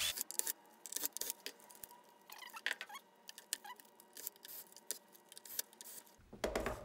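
Scattered light clicks, taps and rattles of plastic parts and screws being handled while a hoverboard's battery cage is taken off and the battery moved. A faint steady hum sits under them for most of the time.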